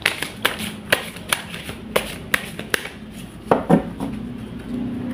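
Tarot deck being shuffled by hand: a run of sharp card slaps about two a second, then a louder rustle of cards near the end.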